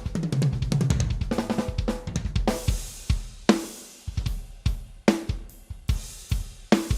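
Janara Slim Witch acoustic drum kit being played: a fast run of tom strokes stepping down in pitch over the first couple of seconds, then a steady groove of bass drum and snare with ringing cymbals.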